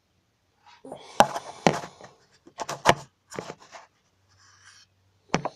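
Handling noise from a phone held in the hand: fingers rubbing and knocking against the phone near its microphone, a string of sharp clicks and rustles starting about a second in, with another knock near the end.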